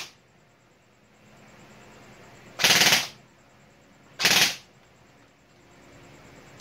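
Airsoft electric (AEG) rifle with a stock, unupgraded gearbox firing short full-auto bursts: the end of one burst right at the start, then two more bursts of under half a second each, about a second and a half apart.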